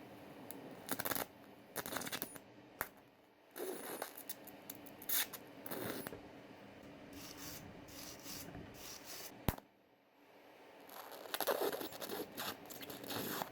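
Irregular scraping and rubbing strokes from hand work on metal parts, coming in bursts. There is a single sharp click about nine and a half seconds in.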